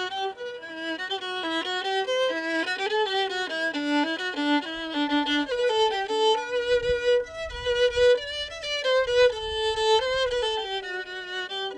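Music: a violin playing a melody of quickly changing notes.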